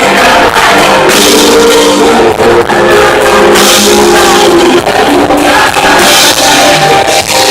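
Live pop band playing loudly through a PA speaker close by, with a drum kit under held chords and a little singing. The sound is loud and unclear from the closeness to the speaker.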